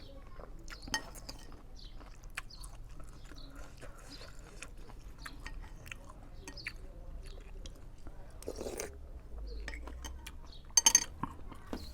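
A person chewing a mouthful of instant noodles, with small wet mouth clicks throughout. There is a quick cluster of loud sharp clicks near the end.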